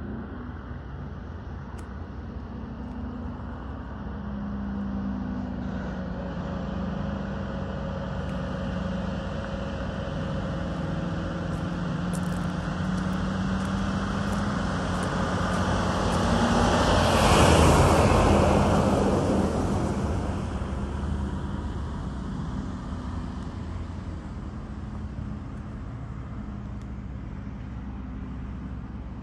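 Detroit Diesel 8V92 two-stroke V8 in a cab-over Kenworth truck driving past: the engine grows louder as the truck approaches, is loudest a little past halfway through as it goes by with a rush of tyre and road noise, then fades as it drives away.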